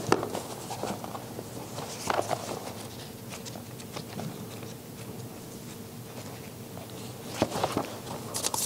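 Thin Bible pages rustling and flicking as they are leafed through by hand, with small scattered clicks that come thickest near the end, over a faint steady hum.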